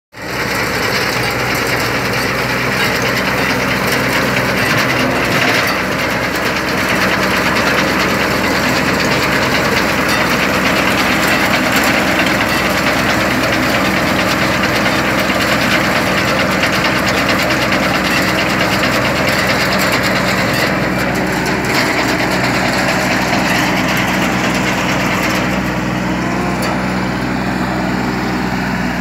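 Massey Ferguson 6028 compact tractor's engine running steadily under load as it drives a multi-crop harvester through the soil, with a continuous rattle from the harvester's digging mechanism.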